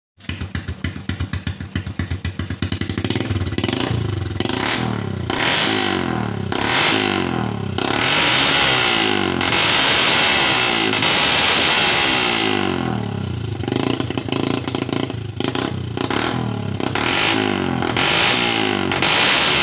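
Small motorcycle engine running through a cheap exhaust that has been hollowed out ('bobok knalpot') for a louder, crisper ('garing') note. It idles with rapid even popping for the first few seconds, then is revved up and down over and over with the throttle, holding one longer rev near the middle.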